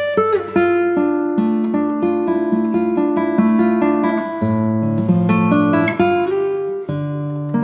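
Background music on a plucked string instrument, a picked melody of ringing notes over lower held notes.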